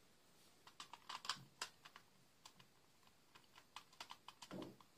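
Faint, irregular clicks and taps of a Furby Boom toy's plastic body being handled, with a short duller knock near the end.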